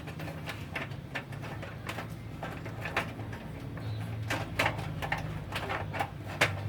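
Irregular clicks and light knocks of PC parts being handled as power supply cables are plugged into the motherboard, busier in the second half, over a steady low hum.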